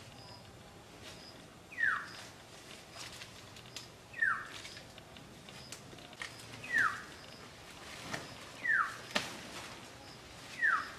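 A forest bird giving a short downward-sliding whistled call, repeated five times about every two seconds. Scattered clicks and one sharp snap about nine seconds in.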